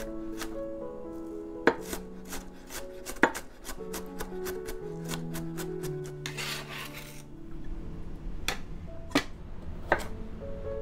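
Chef's knife striking a wooden end-grain cutting board in a few sharp chops through diced onion. About six seconds in comes a second-long scrape as the onion is gathered across the board with the blade. Near the end come a few more chops through a carrot, all over soft background music with held notes.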